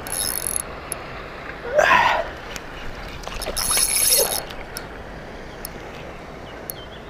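A spinning reel gives two short high-pitched buzzes, at the start and again about three and a half seconds in, while a small wels catfish is being played on the line. Water splashes about two seconds in and again about four seconds in; the first splash is the loudest sound.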